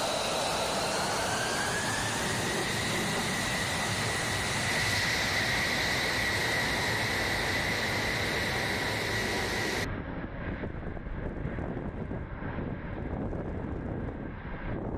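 F-35A's F135 turbofan running on the ramp: a steady jet roar with a high whine that rises in pitch over the first couple of seconds and then holds. About ten seconds in, the sound cuts abruptly to a quieter, rougher jet rush without the whine as the jet taxis.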